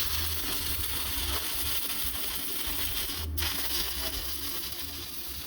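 Stick-welding arc crackling and hissing steadily, with a short break about three seconds in and fading toward the end.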